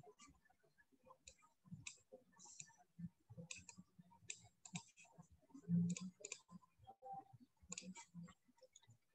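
Faint, irregular clicks of a computer mouse, with a louder low thump about six seconds in.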